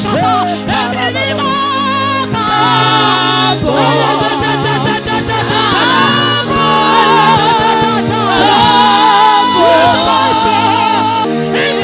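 Gospel praise singing with voices in a group over sustained keyboard chords and a bass line, the chords changing every second or two.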